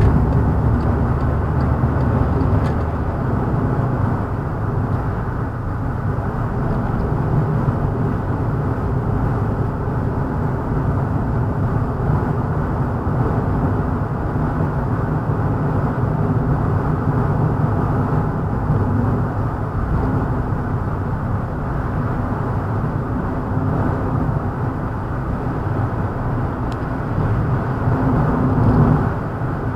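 Steady low rumble of a moving vehicle, even throughout.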